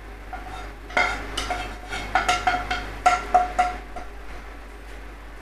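A wooden spatula knocking and scraping against a metal frying pan as fried onions and carrots are scraped out of it into a pot of soup. The pan gives a quick run of knocks with a short ring, which stops about four seconds in.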